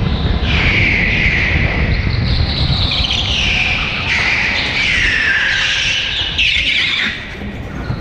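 Kart tyres squealing on a smooth, polished indoor track floor through a run of corners: several long squeals, most sliding down in pitch, over the low drone of the kart's engine.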